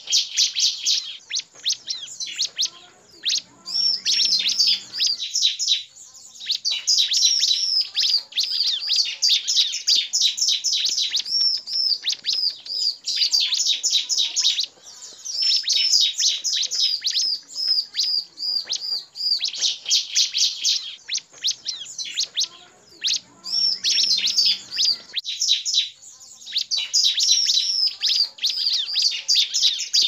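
Bar-winged prinia (ciblek) calls: dense, fast runs of high, sharp chirps that break off briefly about five seconds in and again near the end. It is a lure track made from male calls, female calls and ngebren chatter, meant to draw in prinias and set other ciblek singing.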